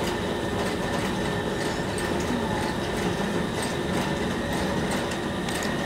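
Silk-reeling machine running steadily, a continuous mechanical rattle with a faint whine, as it unwinds silk filaments drawn from cocoons soaking in warm water.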